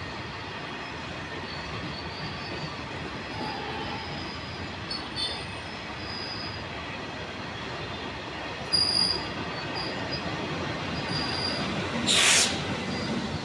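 Freight train wagons rolling past on the rails: a steady rumble of steel wheels with short high-pitched wheel squeals now and then. A brief loud burst of noise comes near the end.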